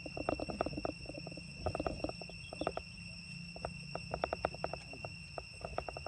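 A steady, high-pitched insect drone, with many quick, irregular clicks and taps in clusters over it.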